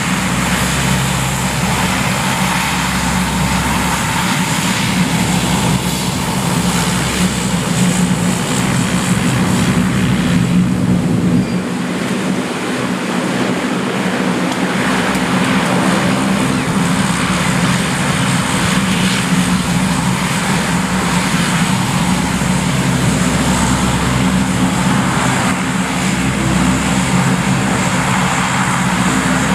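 Lockheed C-130HS Hercules' four Allison T56 turboprop engines running as the aircraft moves along the runway: a steady propeller drone over a broad turbine hiss, dipping briefly about twelve seconds in.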